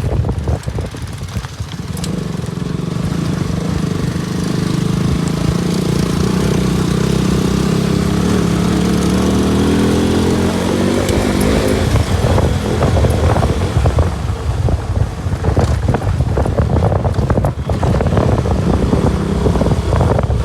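KTM RC 200's single-cylinder engine running under load on a ride, its pitch climbing slowly through the first half, then turning uneven and choppy.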